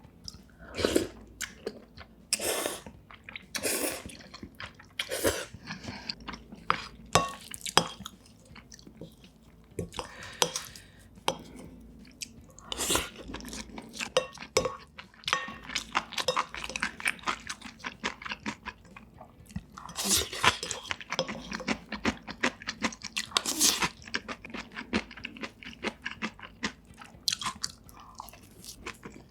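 Close-miked eating sounds of a person chewing and biting through a home-cooked meal, with irregular sharp clicks and short bursts of mouth noise.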